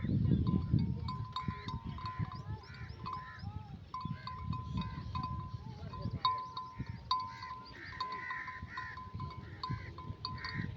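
Many sheep bells clanking irregularly and overlapping as a flock of sheep and lambs grazes, with a low rustling underneath.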